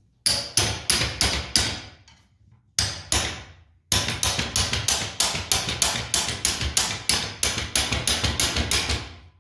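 Hammer blows on metal, struck in quick succession at about three a second: a short run, a pause, two blows, then a long steady run. The blows are hammering at a seized bolt on a vintage reel mower.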